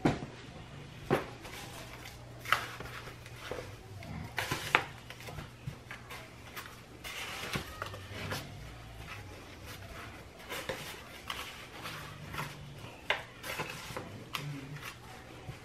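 Scattered clicks, knocks and crinkles from a disposable aluminium foil pan and the rustle of crushed Cheetos crumbs as a gloved hand packs them onto a cheese-coated corn dog, over a faint steady low hum.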